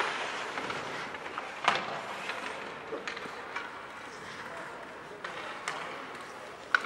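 Ice hockey rink sound: a steady hiss of arena and crowd noise with scattered sharp clacks of sticks and puck, the loudest a little under two seconds in and another just before the end.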